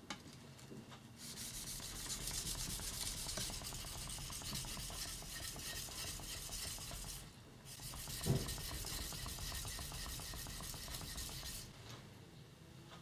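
Yanagiba knife blade being stroked back and forth on an Amakusa natural sharpening stone: a steady gritty rubbing in two long runs with a short break between them, and one knock early in the second run.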